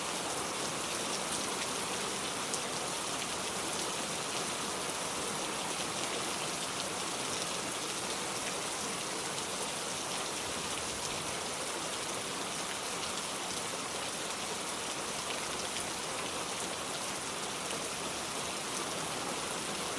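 Steady rain falling, an even hiss that holds without pauses.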